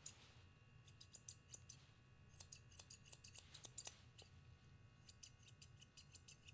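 Curved grooming shears snipping the hair around a small dog's back paw pad: faint, quick snips in short runs.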